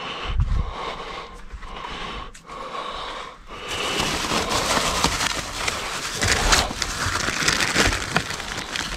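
Rummaging in a dumpster: plastic bags and food packaging rustling and crinkling, getting louder and busier about four seconds in.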